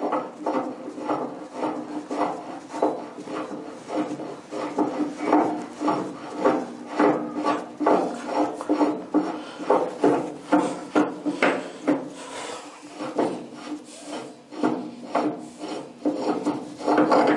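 A threaded brass part being unscrewed by hand from a narrowboat's steel stern tube: a rasping scrape of metal on metal with each turn, about two strokes a second, over a steady low ringing from the tube.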